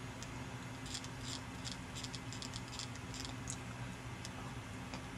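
Faint light clicks and ticks from a BlackBerry trackball being rolled to scroll through text, bunched between about one and three and a half seconds in, over a faint steady low hum.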